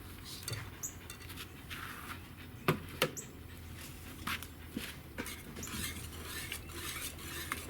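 Spoon stirring and scraping around a pot of milky cheese sauce on a burner, with a few light clicks against the pot; the sauce is stirred to keep the milk from scorching on the bottom.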